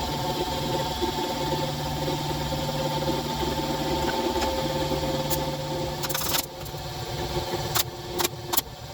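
Power drill running under load, driving screws into wood, for about six seconds with a short change in pitch part-way, then stopping. A few sharp knocks follow near the end.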